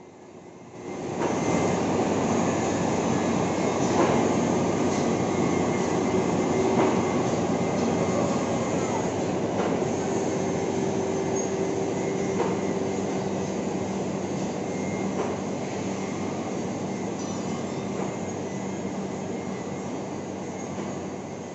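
Heavy workshop machinery starts about a second in and then runs with a loud, steady mechanical noise and a humming tone. A few sharp metallic knocks come through it.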